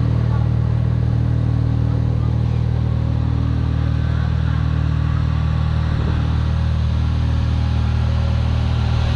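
An engine running steadily, a low even drone with a slight fast pulse.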